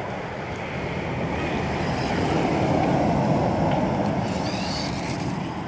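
Small toy radio-controlled car driving over concrete, a rushing noise that swells as it comes near about halfway through and then eases off.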